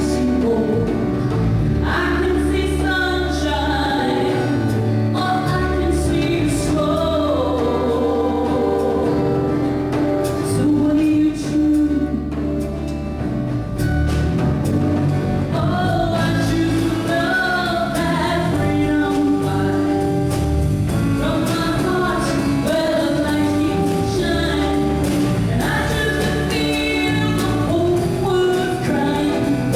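A song: a singer with a wavering, held vocal line over band accompaniment, with a steady bass and held chords underneath.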